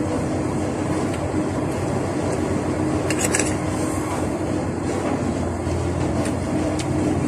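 Steady loud rumbling background noise with a faint steady hum. A metal spoon scrapes and clinks on a ceramic plate about three seconds in.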